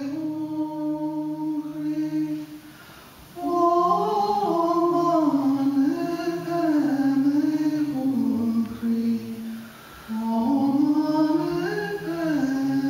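A woman singing unaccompanied in slow, long held notes that rise and fall, with a lower steady note sounding beneath at the start and again near the end. The singing breaks off briefly twice, about three seconds in and about ten seconds in.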